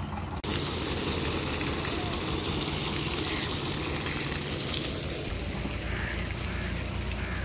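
Water gushing from the outlet of a water tanker trailer onto a dirt road bed, a steady rushing splash. About two-thirds of the way through it gives way to a lower, steady rumble.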